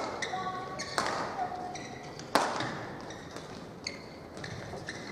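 Badminton rackets hitting a shuttlecock in warm-up rallies: sharp cracks about a second in and again at about two and a half seconds, with fainter hits between. Brief squeaks of shoes on the court floor come in between the hits.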